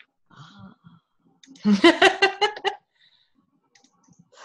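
A woman laughing over a video-call connection: a short burst of quick, pitched laughs lasting about a second, starting about a second and a half in, after a soft murmur.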